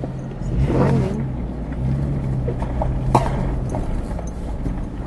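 Car engine running steadily as the vehicle drives slowly over rough ground, with a sharp knock about three seconds in.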